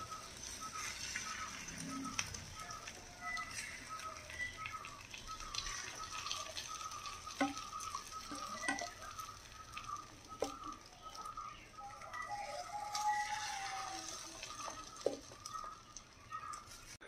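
Egg omelette batter sizzling in the hot cavities of an unniyappam (appe) pan as it is spooned in, with a few sharp clinks of a steel spoon against the bowl and pan after about seven seconds. A faint short chirp repeats about twice a second in the background.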